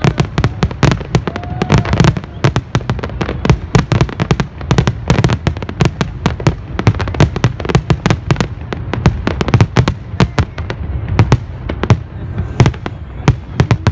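Big public fireworks display going off without pause: a dense run of loud sharp bangs, several a second, over a continuous low rumble of shell bursts.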